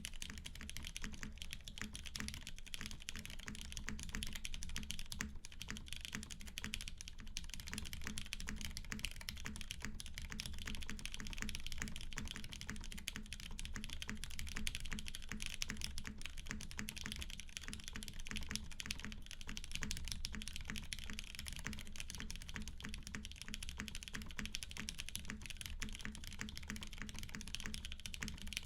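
Continuous fast typing on a custom TGR 910 RE mechanical keyboard: Krytox-lubed Hyperglide brown tactile switches on a polycarbonate plate under GMK keycaps, giving a rapid, steady stream of key strokes.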